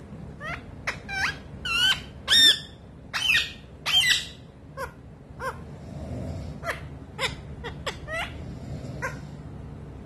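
Young rose-ringed parakeet giving a quick string of short, squeaky calls that sweep in pitch, loudest in the first four seconds, then softer, sparser chirps: courting calls.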